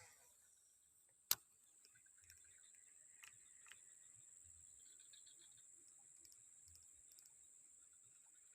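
A single sharp click about a second in, typical of a fishing reel being engaged after a cast, over a faint steady high-pitched drone with a few soft ticks.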